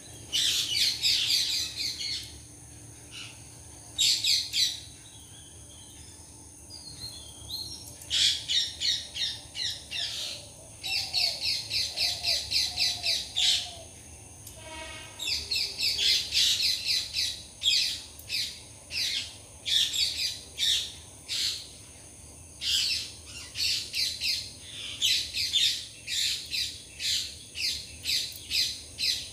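Birds chirping in quick-fire bouts of rapid, high notes, with short pauses between bouts. A faint steady high hum runs underneath.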